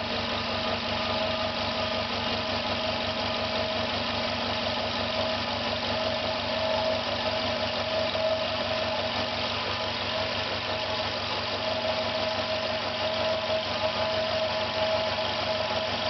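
Air compressor running steadily under load while its pressure builds, a fast even pulsing chug with a steady whine over it. It is making a strange noise, the sign of the failing compressor.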